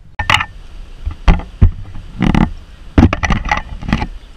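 A string of irregular knocks, bumps and rubbing right at an action camera's microphone, as the camera is handled and set up, over a low rumble of wind on the mic.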